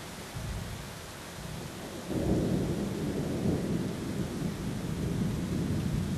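Thunder rumbling over steady rain. The low rumble swells suddenly about two seconds in and keeps rolling.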